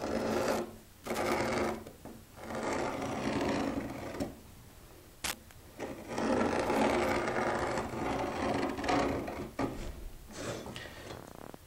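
A marking tool drawn along a square across a walnut board, giving several scratchy strokes on the wood, some a second or more long, with short pauses between them and a single sharp click about halfway through.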